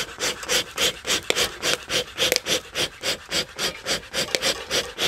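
Bee smoker bellows pumped in quick, even puffs, about three a second, each a short rush of air through the Dadant smoker's fire chamber. This is the air being forced through the burning fuel to keep it roaring hot.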